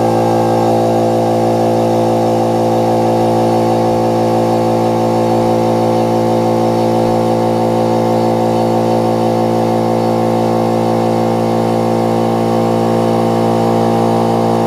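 Small electric power tool motor running at one steady speed with a constant hum, used to buff chainsaw parts smoother; it stops abruptly at the very end.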